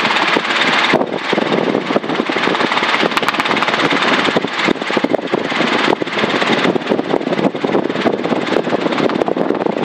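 Helicopter in flight, heard from inside the cabin: a steady, loud mix of engine and rotor noise.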